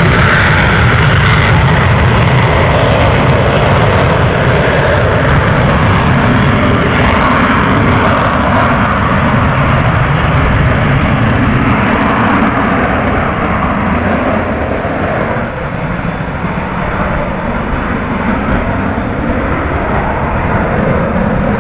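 Hornet fighter jet engines running at high power, a loud steady roar. The top hiss falls away about two-thirds of the way through and the level eases slightly. The uploader wonders whether the engines are on afterburner.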